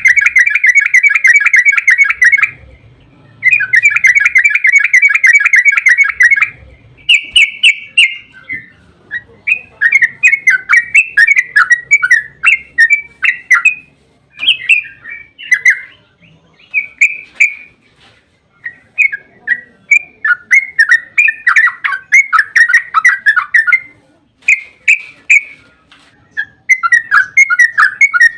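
Yellow-vented bulbul (trucukan) singing its rapid, bubbling rolling song (ropel). Two long unbroken phrases open it, each about three seconds, followed by many shorter, choppier phrases separated by brief pauses.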